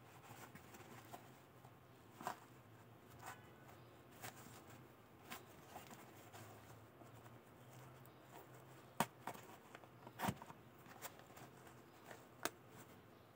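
Scattered faint clicks and taps of hands handling a tactical knee pad, fingers on its hard rubber cap and its strap and plastic buckle, with a few sharper clicks in the second half.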